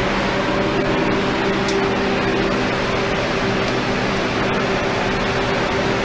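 Turbocharged car engine running at a steady speed, heard from close up as a dense, even drone with a constant low hum and no change in pitch.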